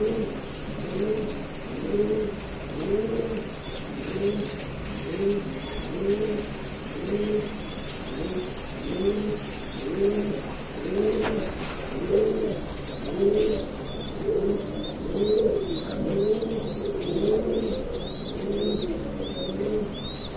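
Many pigeons cooing together, their low calls overlapping in a steady rolling chorus. From about twelve seconds in, a quick run of high-pitched chirps, about three a second, sounds over the cooing.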